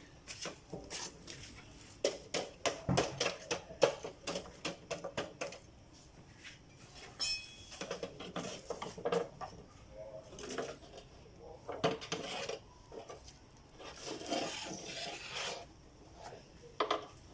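Metal cooking utensil clinking and knocking against a pan as chicken seekh kababs are turned over a low flame, in quick runs of clicks with pauses between.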